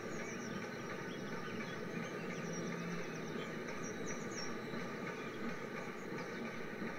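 N gauge model freight train of hopper wagons running past on the track: a steady rolling rattle of many small wheels on the rails, with brief high squeaks now and then.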